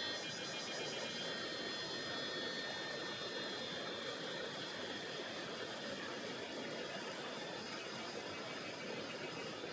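Tonghou River flowing: a steady, even rush of water. Thin, high steady tones sit above it and fade out over the first few seconds.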